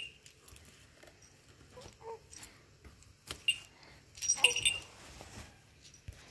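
Beaded cords and small trinkets hung on a wooden baby cradle clicking and clinking as they are handled, in scattered taps with a cluster about four seconds in. A baby makes a few short vocal sounds.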